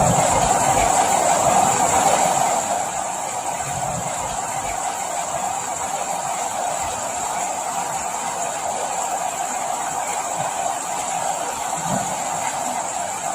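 Steady rain, an even hiss with no single drops standing out, dropping a little in level about two and a half seconds in.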